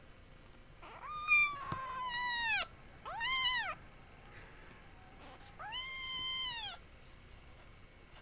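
Young kitten meowing three times: high, arching calls, the first and last each more than a second long with a short one between.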